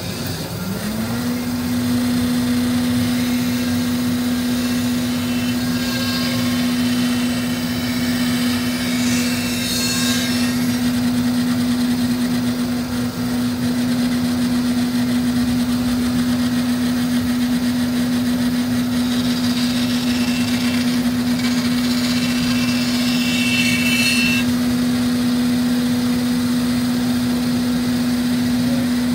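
Band saw motor spinning up about a second in, then running with a steady hum over a running dust collector. The blade cuts into the end of a wooden table leg in two stretches of a few seconds each, rounding the end along a drawn arc.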